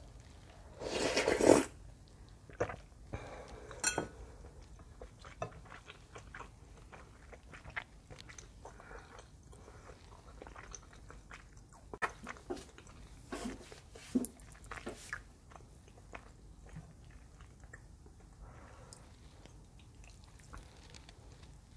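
A person eating spicy soup ramen noodles close to the microphone: one loud, swelling noodle slurp about a second in, then chewing with scattered wet clicks and smacks, which bunch up for a few seconds past the middle.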